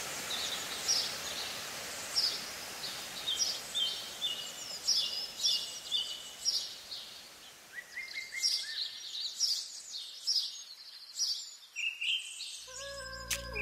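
Water rushing from a waterfall into a rocky pool, a steady wash that slowly fades away, with small birds chirping over it in quick repeated calls. Music comes in near the end.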